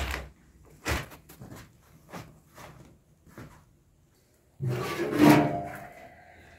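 A few irregular knocks and shuffles, then about four and a half seconds in a square sheet-metal tin is picked up and scraped. The metal clanks and rings briefly, with several steady tones fading over about a second.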